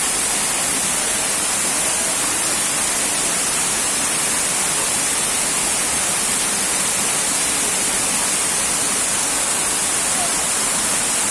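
Benang Kelambu waterfall: falling water making a steady, unbroken rush.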